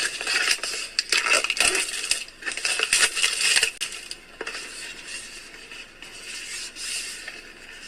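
Packaging being handled and unwrapped by hand: dense crinkling with many sharp clicks, loud for about the first four seconds, then softer.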